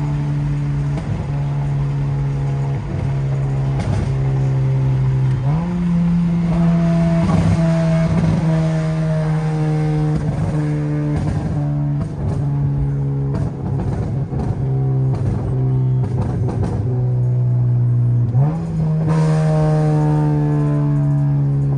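Exhaust drone of a 2015 Acura TLX with muffler and resonator deleted, running at fairly steady revs on the road. The pitch jumps up about five seconds in and again near the end, easing slowly down in between, with a trumpet-like tone.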